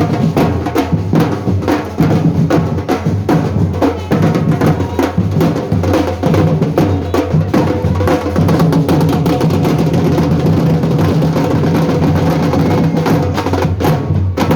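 Drum music: fast, continuous drumming with many quick strikes, over a steady low bass.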